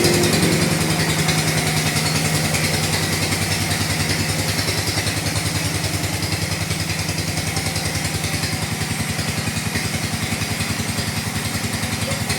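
Chainsaw engine dropping from high revs in the first moment and then idling steadily with an even, pulsing beat.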